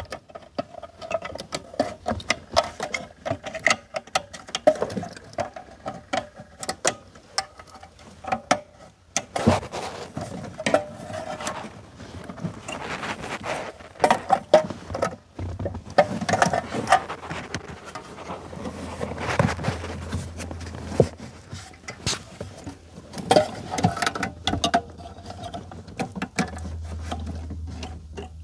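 Hands handling a Ford Thunderbird front electronic module and plugging wiring-harness connectors into it: irregular clicks, rattles and scrapes of plastic connectors, wires and the module's metal case.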